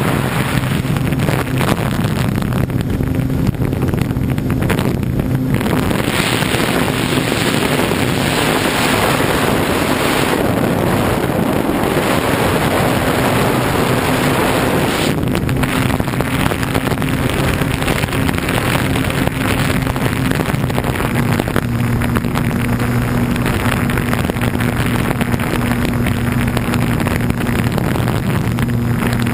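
Radio-controlled model plane's propeller and motor running steadily in flight, heard from the plane's own exposed camera. Heavy wind rushes over the microphone, and the motor's pitch shifts slightly a few times.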